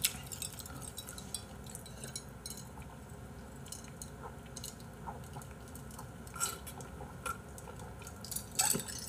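A person drinking from a small glass: quiet sips and swallows with faint small clicks, a few slightly louder ones near the end.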